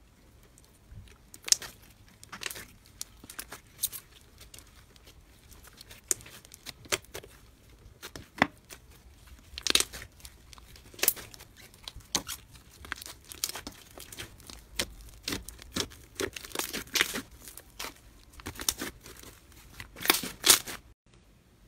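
Hands pressing and kneading slime mixed with foam beads, giving irregular crackling and popping that come and go.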